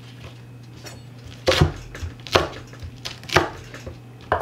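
Chef's knife chopping green chillies and spring onion on a bamboo cutting board: about half a dozen sharp, uneven chops, starting about a second and a half in.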